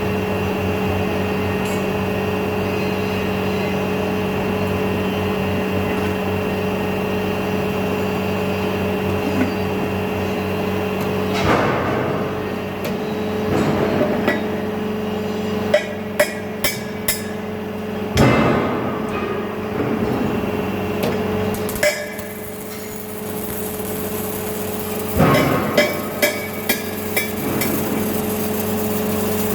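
Industrial machinery running with a steady hum, broken by irregular sharp metal clanks and knocks that come in clusters during the second half.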